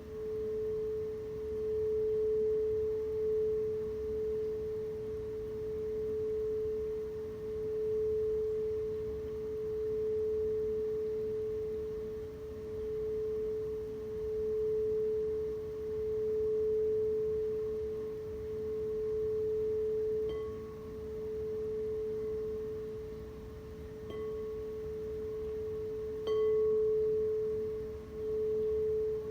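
Singing bowl ringing with one steady, fairly low tone that swells and fades in slow waves. Near the end it is struck lightly three times, the last strike making it louder.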